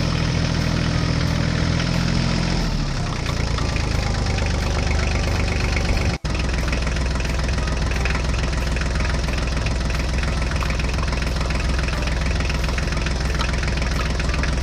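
Tractor engine sound running steadily, with a change in pitch about three seconds in and a momentary cut-out a little after six seconds.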